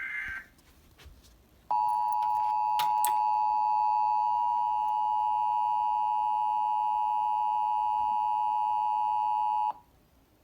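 Emergency Alert System attention signal: the steady two-tone alert tone, starting nearly two seconds in and held for about eight seconds before cutting off. It is preceded at the very start by the tail of a burst of SAME header data noise.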